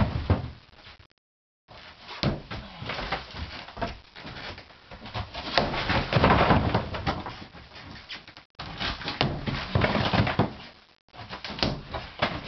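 Sledgehammer blows striking a plastered brick wall again and again, with plaster and brick rubble crumbling and falling. The sound cuts out completely for a moment three times.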